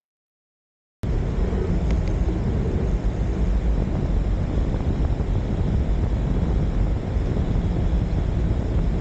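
Steady wind noise buffeting the microphone of a camera riding along on a moving bicycle, heaviest in the low end. It starts abruptly about a second in, after silence.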